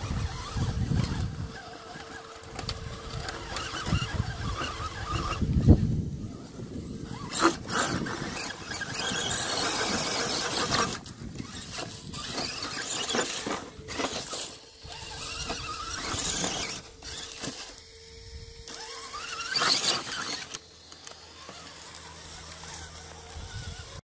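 RC rock crawler's brushless motor and drivetrain whining as it crawls over creek-bed rocks, coming and going with the throttle, with scraping and rustling as it pushes through rock and dry grass.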